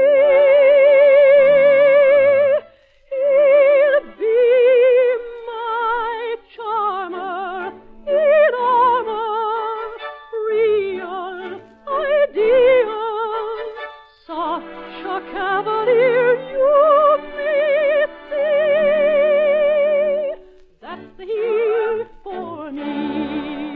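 Operetta singing, mostly a soprano with wide vibrato, in long held phrases with short breaks between.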